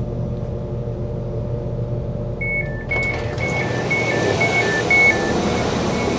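Passenger train door warning beeping, a repeating two-tone high-low pattern of about two pairs a second, as the train's doors open at a station stop. Before the beeping the train's low running rumble is heard, and outside noise swells in as the doors part about three seconds in.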